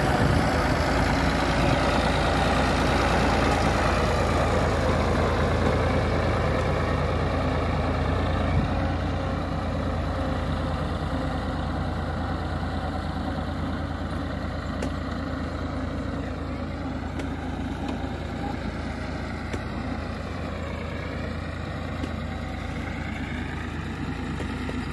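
Ford 3610 tractor's three-cylinder diesel engine running steadily while it drags a rear blade through loose sandy soil. It grows gradually fainter as the tractor moves away.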